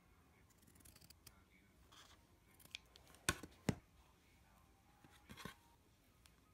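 Scissors snipping through felt with faint crisp cuts, then two sharp clicks of the scissors blades just past halfway. Soft rustling of the felt pieces being handled follows near the end.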